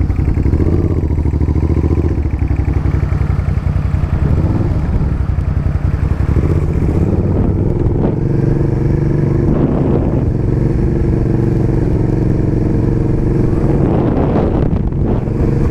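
Suzuki SV650N's 645 cc V-twin engine running at low, fairly steady revs as the motorcycle rolls slowly.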